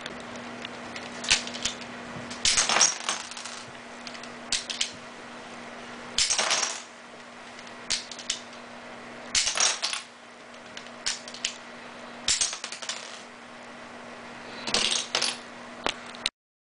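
Lego brick-shooter pistol firing again and again: sharp plastic clicks of the mechanism and Lego bricks clattering against targets and a wooden tabletop, in clusters every second or two.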